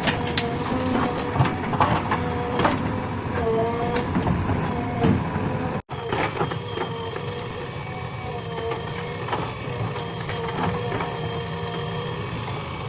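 JCB 3DX backhoe loader's diesel engine running under load with a wavering hydraulic whine, and sharp knocks and clanks from the digging, most of them in the first half. The sound drops out for an instant about six seconds in.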